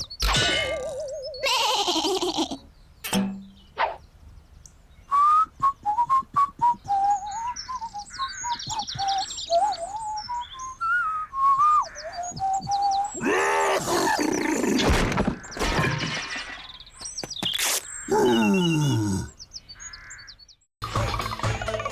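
A run of cartoon-style animal sound effects: a wavering whistle-like tune with high chirps, and several deep calls that fall in pitch, with music starting near the end.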